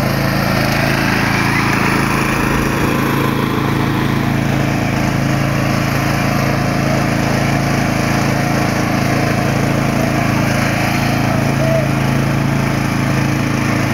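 Ride-on lawn mower engine running steadily at an even speed.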